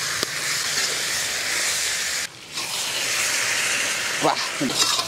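Chicken pieces coated in masala sizzling in hot oil in a kadai, a steady frying hiss that drops out briefly a little after two seconds in. Two brief pitched sounds come near the end.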